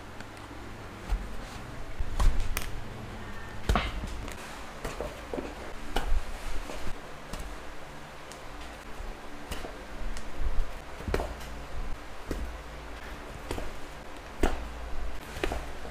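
Leather being hand saddle-stitched with two needles: irregular clicks and taps of the needles and the leather being handled, with thread drawn through the punched stitching holes.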